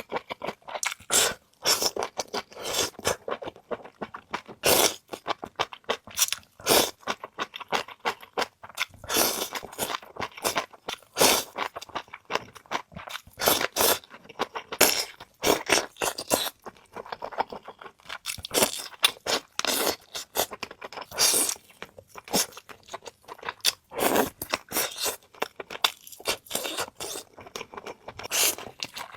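Close-miked chewing of crunchy food, a dense run of irregular crunches and bites with short pauses between mouthfuls.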